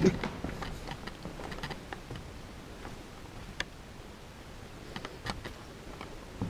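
Footsteps on a gritty, debris-strewn floor: scattered light clicks and ticks at an uneven pace, with a heavier thud right at the start.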